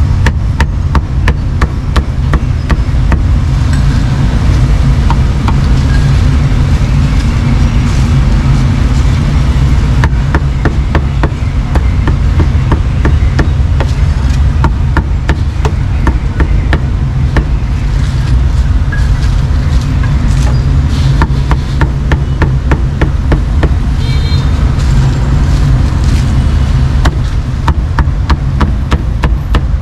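Cleaver chopping meat on a chopping board: rapid, irregular strikes a few times a second, over a steady low rumble.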